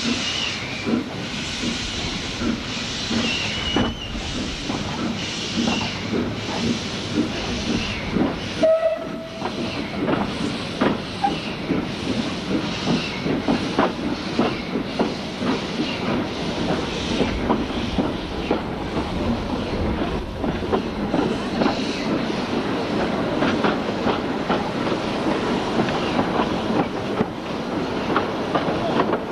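Narrow-gauge Beyer Peacock 2-4-0 tank locomotive No. 11 'Maitland' pulling its train away, heard from a carriage: steam exhaust beats and hiss over the clatter of carriage wheels on the rails, the beats coming closer together as the train picks up speed. A short whistle-like note about nine seconds in.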